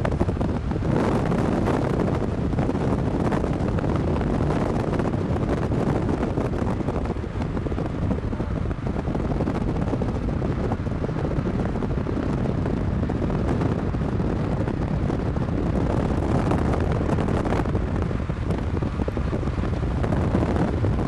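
Wind rushing and buffeting the microphone from a moving car, a steady low rumble of air with no letup.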